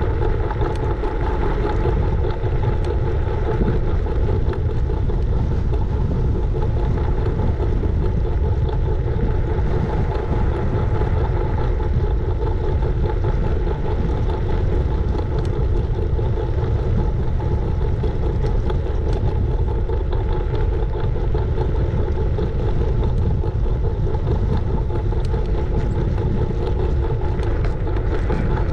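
Steady rumble of a moving scooter: wind on the camera's microphone and the wheels rolling over the road, with a faint steady whine running throughout.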